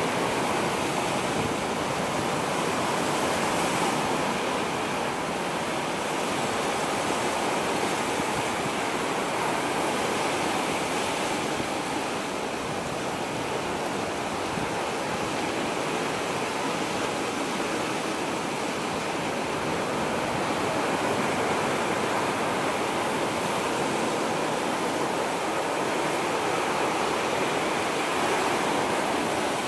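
Steady outdoor rushing noise, an even hiss with no distinct events, of the kind made by surf, rain or wind.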